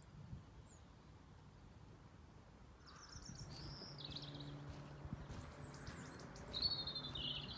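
Small birds calling in the woodland: two short, high, falling phrases, one about three seconds in and another near the end, over a faint, low, steady hum.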